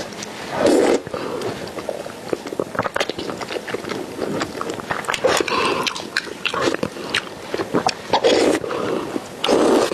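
Close-miked eating of wide flat noodles in a thick sauce: wet chewing and lip smacking, broken by four louder slurps as noodles are drawn into the mouth.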